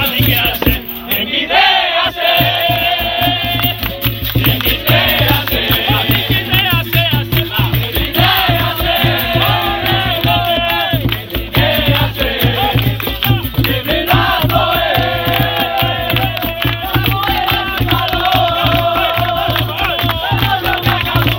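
Capoeira roda music: a group of voices singing over a steady, driving drum beat with rattling percussion.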